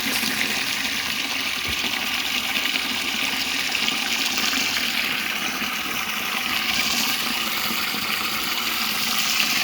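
Water gushing steadily from a water tank's tap into a water jar, a constant rushing that does not let up.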